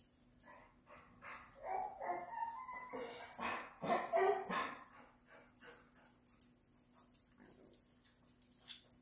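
A dog giving a run of excited whining barks and yips in several bursts, the loudest near the middle, as a greeting on seeing the family arrive home. Light sharp clicks follow in the second half.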